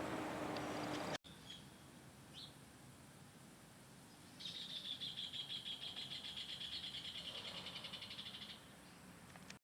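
A small songbird singing one rapid, even trill about four seconds long, after two short faint chirps. It follows a second of steady loud rushing noise that cuts off abruptly.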